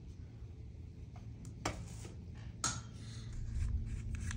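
A low, distant boom rumbling near the end, which is taken for military bomb testing, after two sharp knocks about one and a half and two and a half seconds in.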